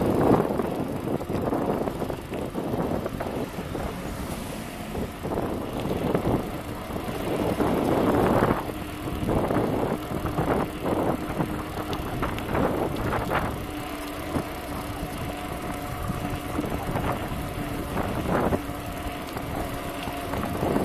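Wind buffeting the microphone and tyre rolling noise from an electric-converted bicycle riding at about 25 km/h, with the gusts strongest near the start and about eight seconds in. A faint steady hum from the 250 W rear hub motor under power comes through in the second half.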